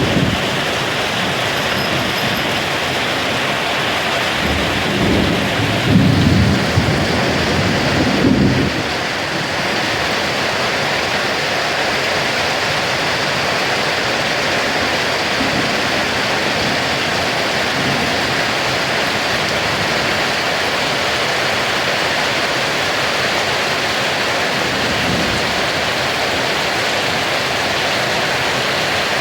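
Heavy summer-storm rain pouring as a steady loud hiss, with thunder rumbling low from about five seconds in to eight seconds in and fainter rumbles later.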